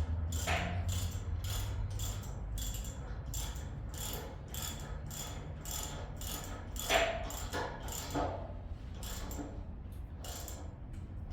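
A metal mechanism clicking steadily, about two to three clicks a second, over a low hum that eases off about two seconds in.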